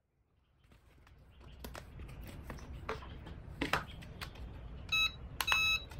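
Hands handling a foam toy RC plane and its plastic two-stick transmitter, with light clicks and rustles. About five seconds in the transmitter gives two electronic beeps, a short one and then a longer one.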